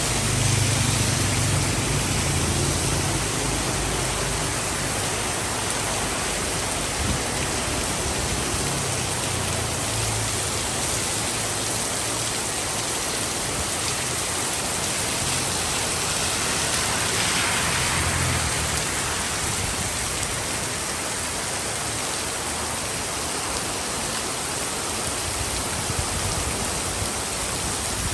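Steady rain pouring onto a city street. A low rumble of traffic rises now and then, and a vehicle swishes past on the wet road a little over halfway through.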